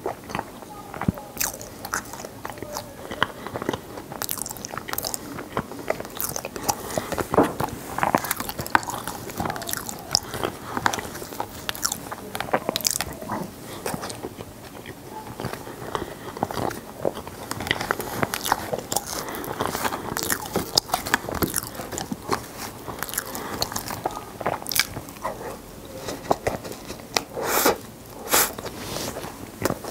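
Close-miked crunching and chewing of frozen ice pieces from an Ice Box ice cup, with irregular crisp crunches and louder clusters about a quarter of the way in and near the end.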